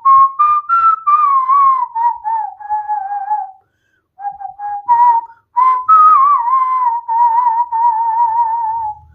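A person whistling a wavering tune: two phrases, each opening with short clipped notes and running into long held notes with a steady vibrato, with a short pause between them.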